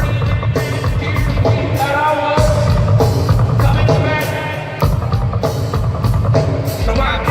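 Live rock band playing, with heavy bass guitar and drum kit.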